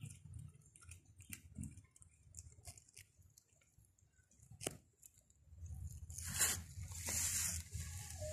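Scattered light crackles and clicks, then from about two-thirds of the way in a loud, dense rustling as a calico kitten's fur brushes against the microphone at close range.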